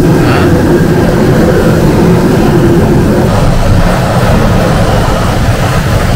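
Hand-held butane torch burning steadily as its flame sears sauced pork slices, a continuous rushing noise heavy in the low end.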